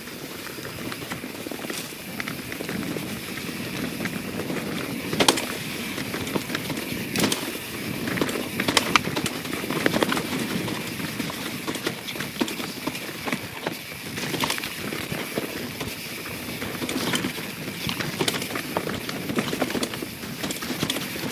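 A YT Jeffsy 27 full-suspension mountain bike rolling fast down a wet, leaf-covered trail: steady tyre noise and bike rattle, with sharp knocks every few seconds as it hits roots and rocks.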